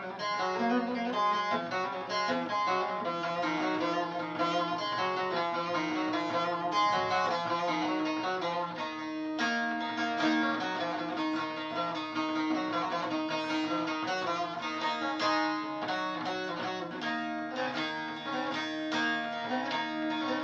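Instrumental interlude of a Turkish folk song (türkü), led by a plucked bağlama (saz) playing a quick melody over held lower notes.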